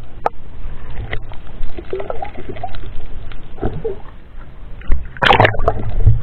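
Water sloshing and splashing around an underwater camera at the surface as a speared cuttlefish is handled, with a louder rush of water about five seconds in.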